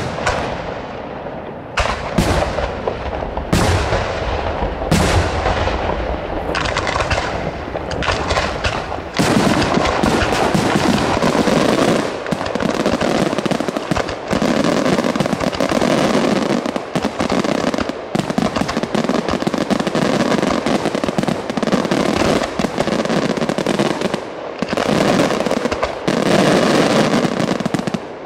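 Aerial firework shells bursting one after another, each bang trailing off in an echo. From about nine seconds in the bangs merge into a dense, continuous barrage of bursts.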